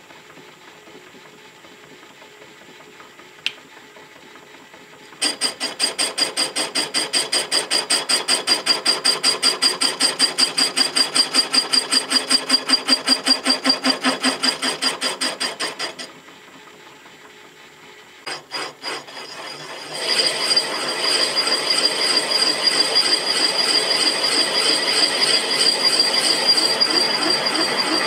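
Knee mill spindle turning a boring bar whose single-point tool cuts the cement mixer yoke's journal, a rapid rhythmic chatter of about five pulses a second with a steady high whine. The mill hums quietly at first; the cut starts about five seconds in, stops for a few seconds past the middle, and starts again.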